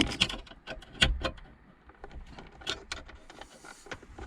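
Irregular clicks and light knocks from hands and a pick working the metal radio mounting sleeve in the dashboard opening, as its tabs are bent down to lock it in place.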